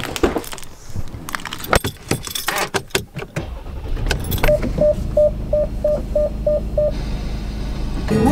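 A few clicks and knocks of a car door, then the car's engine starts with the push button about three seconds in and settles into a steady idle. Over it a dashboard chime beeps eight times, about three a second.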